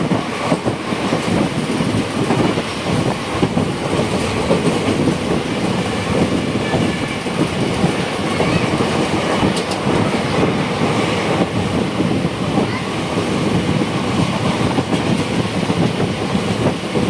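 Intercity express passenger train running at speed: steady running noise of the coaches and wheels on the track.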